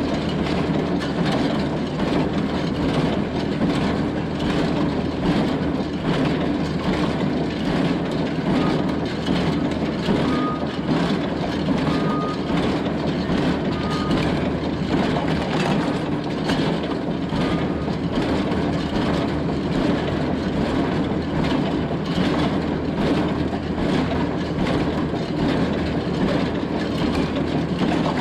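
Farm tractor engine running steadily while baling hay, with a few short high beeps from about a third to two thirds of the way through.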